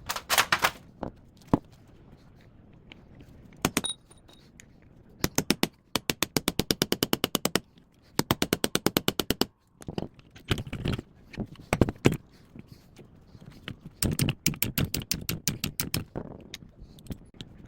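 Hand tools working on a top-loading washing machine being taken apart for scrap: two even runs of rapid ratchet-like clicking, about a dozen clicks a second, then irregular metal-and-plastic knocks and clanks.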